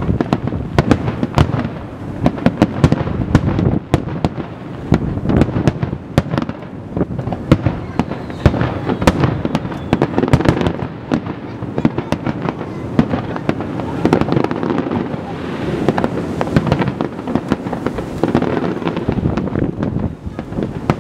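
Aerial fireworks shells bursting in quick, irregular succession: many sharp bangs over a continuous rumble of reports.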